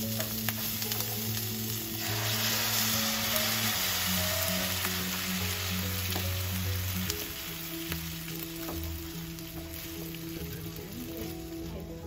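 Sliced onions sizzling in a hot nonstick frying pan as tomato passata is added and stirred in. The sizzle grows louder about two seconds in and eases off after about seven seconds.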